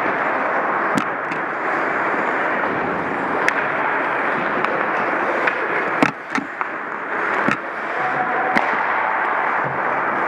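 Ice hockey play on an indoor rink: a steady scraping hiss of skate blades on the ice, broken by about half a dozen sharp clacks of sticks and puck, the loudest about six seconds in.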